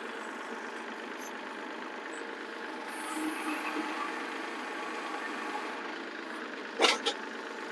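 Kubota compact tractor's diesel engine running steadily, with a couple of brief sharp clicks near the end.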